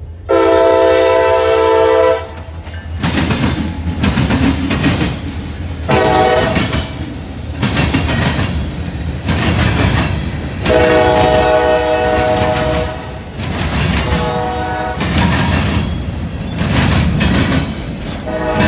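Diesel freight locomotive's multi-note air horn sounding a series of blasts: a long one at the start, a shorter one about six seconds in, another long one, a short one, and a fresh blast starting at the end. Between the blasts the locomotive's engine rumbles and the wheels clatter over the rails.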